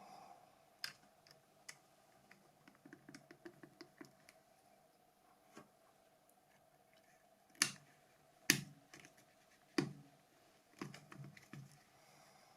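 Scattered clicks and taps of small plastic phone parts being handled and snapped together as a Nokia E70 is reassembled. A run of light taps comes about three seconds in, and three sharper clicks stand out in the second half, over a faint steady hum.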